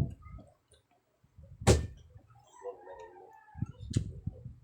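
Close-miked eating sounds of a mukbang: chewing and mouth noises, with two sharp clicks or taps, the louder one a little under two seconds in and a smaller one near the end.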